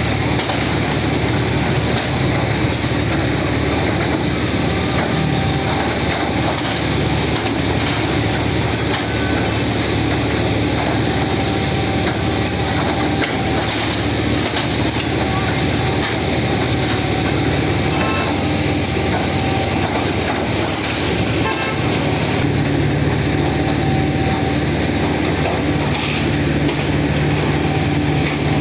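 Heavy diesel-powered track-laying machine running steadily, a continuous loud engine and machinery noise. A high thin tone comes and goes, and the engine note grows deeper and stronger about two-thirds of the way through.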